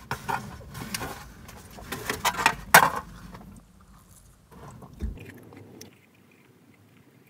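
A person eating from a takeout bowl: a fork scraping and clicking in the bowl, with chewing. The clatter is busiest in the first three seconds, loudest just under three seconds in, then thins out and fades.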